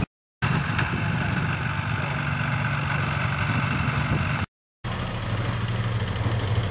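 Engine noise from a snowmobile running across the ice, with a steady low engine hum after it. The sound drops out completely twice, very briefly, once just after the start and once about four and a half seconds in.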